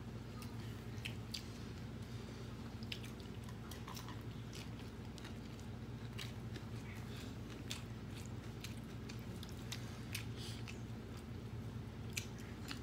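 Close-up eating sounds of people eating by hand: chewing, with many scattered sharp clicks and small crunches, over a steady low hum.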